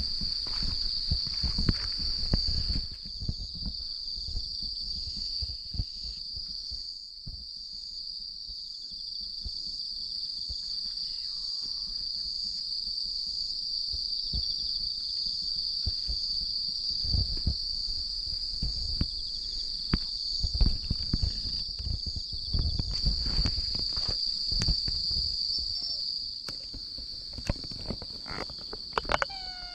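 Crickets chirring in a steady, high, unbroken trill. Scattered low thumps of footsteps on paving come in the first few seconds and again in the middle.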